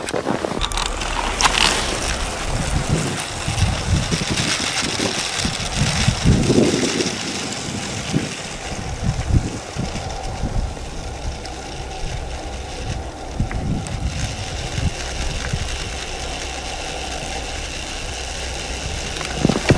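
A small electric Lego train motor whirring steadily as the locomotive plows through deep snow, with irregular crunching and scraping of snow against its front.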